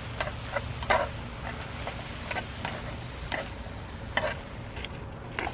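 Wooden chopsticks stirring and lifting just-boiled spaghetti in a shallow metal pan: irregular clicks and scrapes against the pan and wet noodle sounds, over a steady low rumble.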